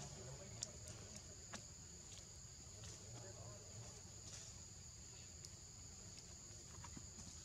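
Faint, steady high-pitched drone of insects, a two-toned hum that does not let up, with a few soft clicks scattered through.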